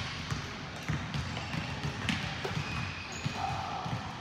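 Basketballs bouncing on a hardwood gym floor: a run of irregular dribbling thumps with a few sharper knocks among them.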